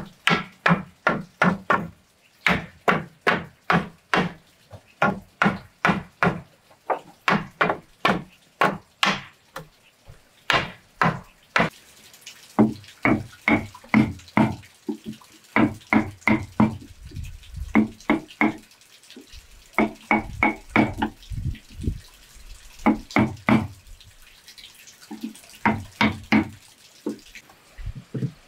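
Hammer blows on wood: quick runs of sharp strikes, about four a second, broken by short pauses.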